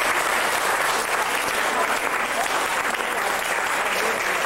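An audience applauding: many hands clapping at a steady level.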